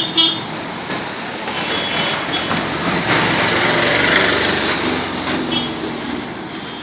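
Street traffic: a motor vehicle's engine and tyre noise swells as it passes close about three to four seconds in, then fades, with short horn toots at the start and about two seconds in.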